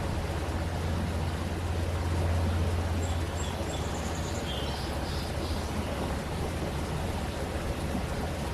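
Steady rushing of a stream under a low, continuous rumble that swells slightly a couple of seconds in. A bird chirps faintly a few times near the middle.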